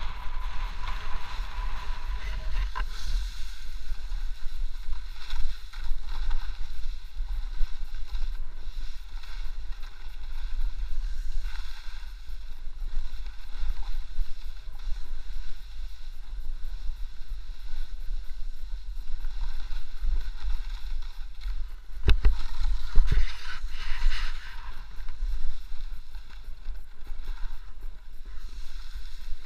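Wind buffeting an action camera's microphone during a fast descent over snow: a steady low rumble with a fainter hiss over it. There are two sharp knocks a little past two-thirds of the way in.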